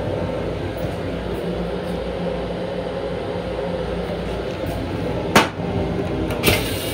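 Steady running hum of a Long Island Rail Road M7 railcar, heard inside its restroom, with two sharp knocks about a second apart near the end.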